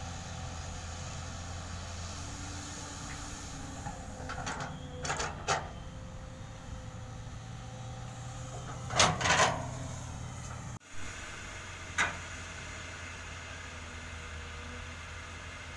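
Heavy earthmoving machinery working: a steady low engine drone, broken by a few short, harsh bursts in two clusters about a third and just past halfway in, and once more shortly after.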